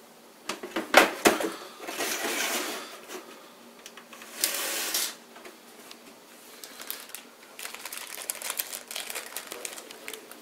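Clicks, knocks and scraping of an optical CD drive being slid into the front drive bay of a PC case. The longest scrape comes about four and a half seconds in, followed by a run of small quick clicks.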